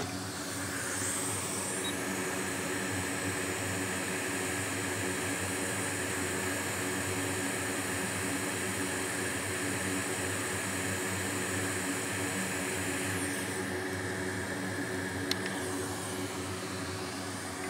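Hot air rework station blowing steadily while it reflows the solder under a chip on a MacBook logic board, its hiss dropping away about 13 seconds in. A steady fan hum runs underneath, with a single light click near the end.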